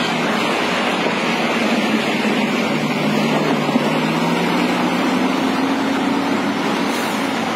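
Engines of heavy loaded goods trucks running as the trucks drive past, a steady drone over broad road noise, with a second, lower engine note joining for a couple of seconds in the middle.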